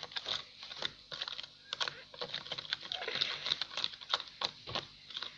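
A spoon stirring a homemade slime mixture of washing-up liquid and powder in a container: irregular clicks and taps, several a second.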